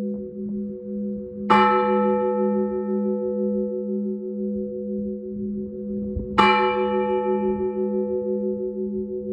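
A church bell being rung in slow Russian Orthodox style, struck twice about five seconds apart. Each stroke rings out bright and fades slowly over a steady, throbbing low hum from the bells.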